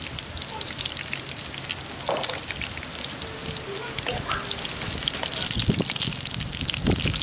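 Eels frying in hot oil in a wok, a steady crackling sizzle. A few knocks of the metal spatula against the pan come in the second half.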